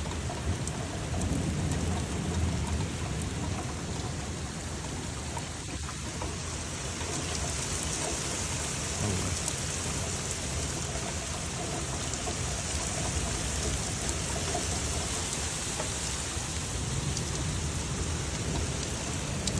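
Steady heavy rain in a thunderstorm, with low rumbling thunder at the start and again near the end; the hiss of the rain grows stronger about halfway through.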